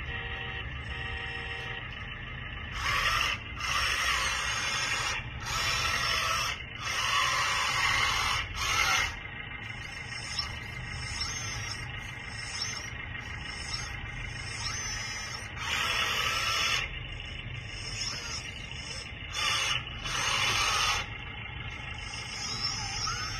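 Radio-controlled scale skid steer loader's pump and drive motors whirring in about eight short bursts of a second or so as its loader arms, bucket and tracks are worked, with a low steady hum between the bursts.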